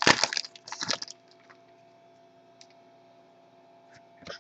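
Foil wrapper of a baseball card pack crinkling and tearing open for about the first second, then quiet but for a faint steady hum and a few light ticks.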